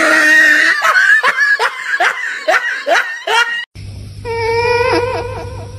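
A person laughing in a quick run of about nine ha-ha strokes, cut off suddenly after nearly four seconds. A steady low hum then sets in, with a wavering pitched tone over it.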